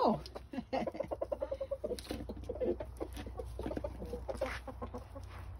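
Chickens clucking: a steady run of short, low clucks and murmurs, with scattered light clicks.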